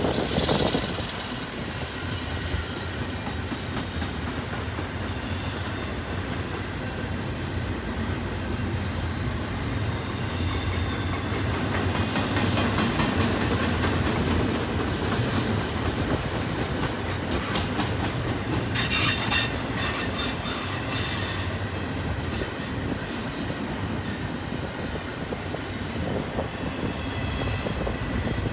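Double-stack intermodal well cars of a freight train rolling past: a steady rumble of steel wheels on rail with clickety-clack over the joints, and a brief high wheel squeal about two-thirds of the way through.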